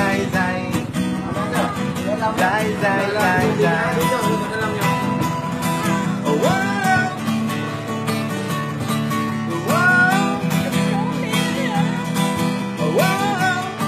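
Busker's music: a string instrument strummed in a steady rhythm, with a few rising sliding notes over it about a third of the way in, two-thirds of the way in and near the end.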